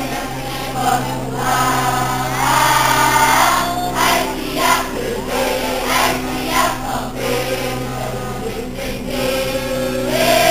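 A large group of schoolchildren singing together in chorus.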